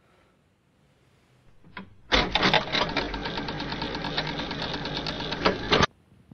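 Film-projector clatter sound effect laid in with a video transition: a rapid mechanical rattle of many fast clicks that starts abruptly about two seconds in and cuts off sharply near the end.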